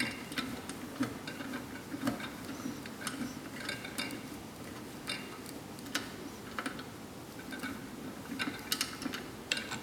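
Small, irregular clicks and ticks of a screwdriver turning screws out of the metal plate of a heat press, with a few sharper knocks near the end.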